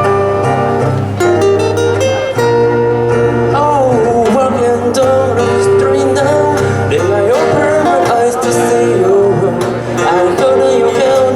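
Live guitar-band music: guitar chords over a steady bass, with a sliding, wavering melody line coming in about three and a half seconds in.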